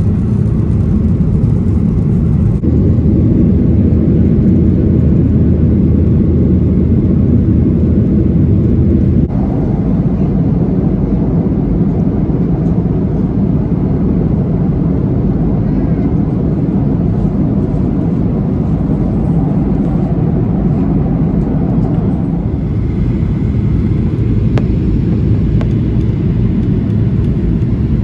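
Passenger airliner in flight heard from inside the cabin: a loud, steady roar of engines and rushing air, its tone shifting abruptly a few times as short clips are cut together.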